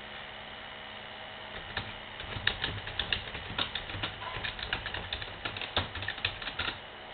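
A rapid, irregular run of light clicks and taps that starts about one and a half seconds in and stops near the end, over a steady electrical hum.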